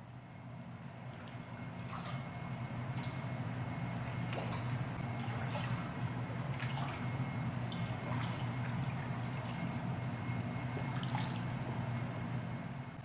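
Water splashing and dripping as spawning walleye pollock thrash at the surface of a holding tank, in scattered sharp splashes every second or two. A steady low hum sits underneath. The sound fades in over the first few seconds and fades out near the end.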